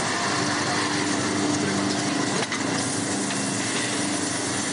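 Automatic brake-lining drilling machine running: a steady mechanical whir of its drill-head motors, with a hum that cuts in and out and a single sharp click about two and a half seconds in.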